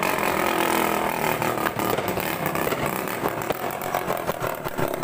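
Steady din of firecrackers with many small scattered pops.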